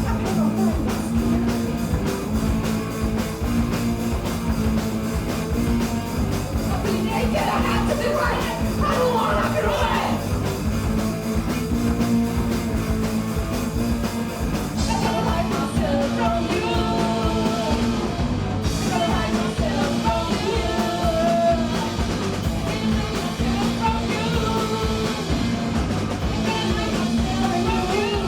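Punk rock band playing live, with a steady driving beat and singing that comes in about seven seconds in and again from about halfway.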